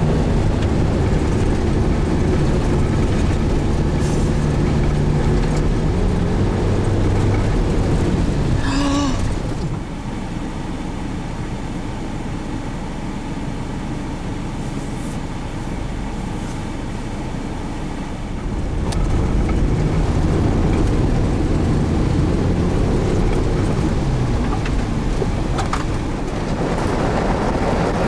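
Four-wheel-drive vehicle driving, engine and road noise running steadily with the engine pitch shifting, quieter for several seconds in the middle. A short warbling tone sounds once about nine seconds in.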